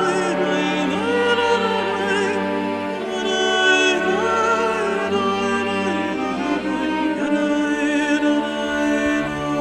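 Background music: a slow, wavering melody line over sustained chords, with the bass note changing every second or so.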